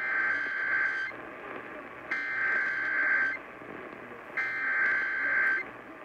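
Emergency Alert System SAME header: three harsh, warbling data bursts of about a second each, a second apart, heard through an AM radio's speaker. They open an EAS relay of a severe thunderstorm warning.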